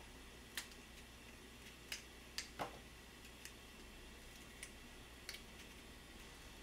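A kitchen knife cutting around a Korean zucchini over a plastic cutting board, making about seven faint, sharp clicks at irregular intervals.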